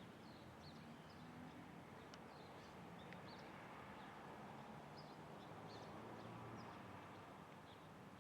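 Faint, scattered short bird chirps from several small birds, over a steady low background rumble.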